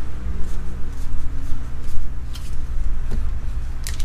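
A steady low rumble with a few faint clicks from cards being handled, then near the end the sharp crinkling of a foil Pokémon booster pack wrapper being torn open.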